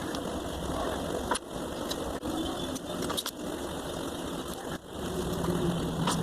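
A small engine running steadily, with a few sharp clicks.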